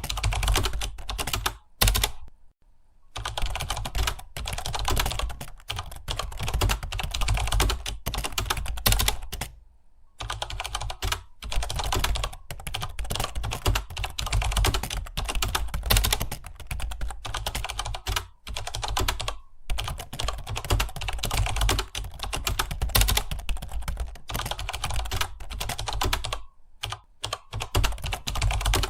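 Fast typing on a computer keyboard: a dense, continuous run of key clicks broken by a few brief pauses.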